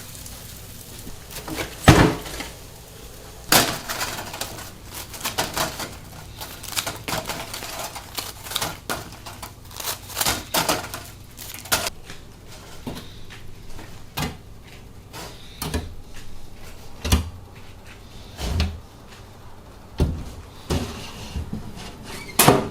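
Irregular clacks and knocks of metal tools and the iron fish-shaped molds being handled at a bungeoppang grill. There are many sharp strikes at uneven intervals, the loudest about two seconds in and again near the end.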